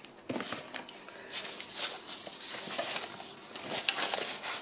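Packaging being handled: a white wrapping sheet rustling and crinkling against cardboard as a small device is lifted out of its box and unwrapped, with a few small taps and clicks.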